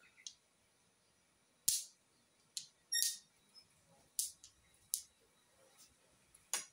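Six or so short, sharp clicks or taps at irregular intervals, one of them with a brief ring.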